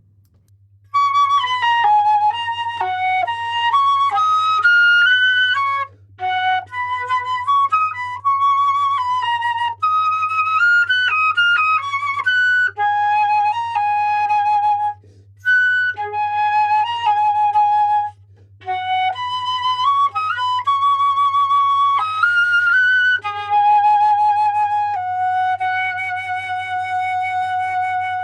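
Solo flute playing a melody with vibrato, in phrases with short breaks between them, ending on a long held note; recorded through a USB condenser microphone, with a faint steady low hum underneath.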